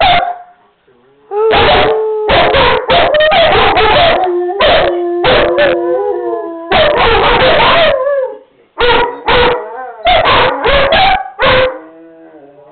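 A German shepherd and a Rottweiler howling together, long wavering howls broken by many short loud barks and yips. The howling starts about a second in and dies down near the end.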